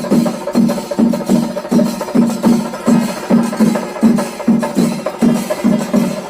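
Chenda melam: a Kerala chenda drum ensemble beating a steady, even rhythm of about three strong strokes a second.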